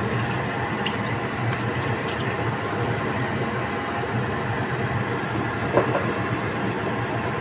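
Liquid poured from a bottle into a steel pot of pork hocks, splashing at the start, over a steady rushing background noise, with one sharp click about six seconds in.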